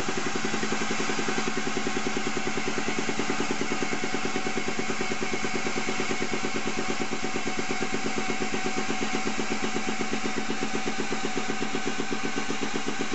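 Hydraulic press pump running steadily with a rapid, even pulse as the ram presses a new pinion head bearing race into a split-nose differential casing.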